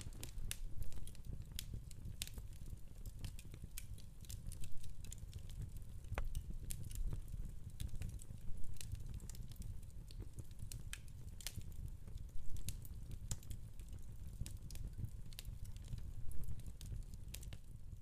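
Wood fire crackling in a fireplace insert: irregular sharp pops and snaps over a low steady rumble.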